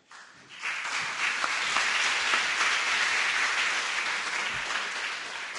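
Audience applauding in a hall, starting about half a second in and fading toward the end.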